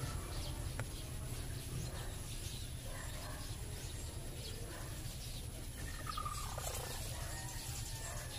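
Quiet outdoor background: a steady low hum with faint bird calls, one of them a falling call about six seconds in. There is a single faint click about a second in.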